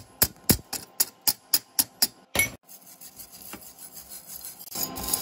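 Chipping hammer knocking slag off a fresh stick-weld bead on thin steel plate: about ten quick sharp strikes, some four a second, then a wire brush scrubbing the bead.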